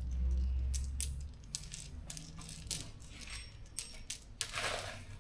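Small metal bolts clicking and clinking as they are handled and dropped one at a time while being counted by hand, about a dozen sharp, irregular clicks. A low hum is heard for about the first second.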